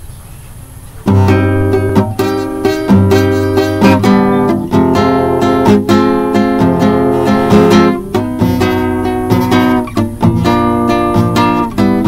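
Classical acoustic guitar strummed in chords, starting about a second in after a faint hum: an instrumental introduction before the singing.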